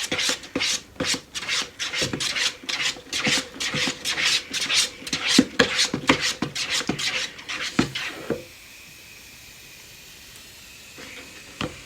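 Spoon scraping around a bowl as a runny glue-and-shaving-cream slime mixture is stirred hard, in fast rhythmic strokes about four a second. The scraping stops about eight seconds in.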